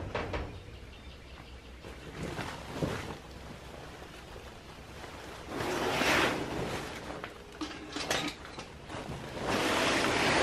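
Plastic tarp rustling and crackling as it is dragged off a tractor, loudest twice: about six seconds in and again near the end, with a few light knocks in between.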